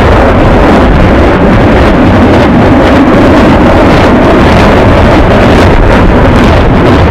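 Salvo of rockets firing from truck-mounted multiple rocket launchers. The launches follow so quickly that they merge into one loud, continuous rushing roar.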